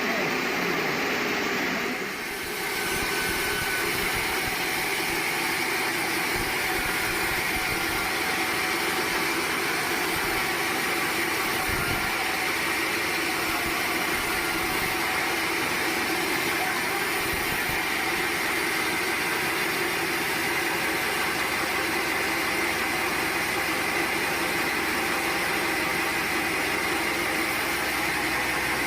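Sawmill machinery running with a steady, even drone, with a constant high whine over a lower hum.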